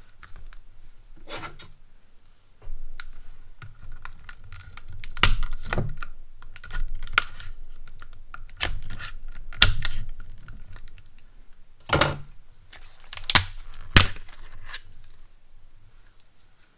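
Hard plastic blister packaging being worked open around new diagonal cutting pliers: irregular crackles and clicks with a handful of louder sharp snaps and knocks.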